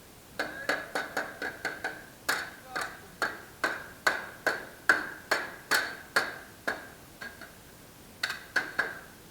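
Hammer blows on a metal part, roughly two a second, each with a short metallic ring. The blows ease off about seven seconds in, then three more follow.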